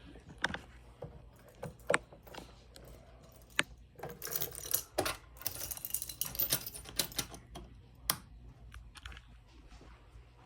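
Irregular sharp clicks and clatter: a few single clicks at first, then a busy run of them from about four to seven and a half seconds in, and one more just after eight seconds.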